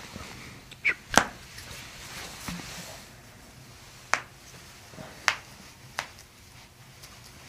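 Sharp cracks and pops from joints being adjusted by a chiropractor, five in all at uneven intervals, the loudest about a second in.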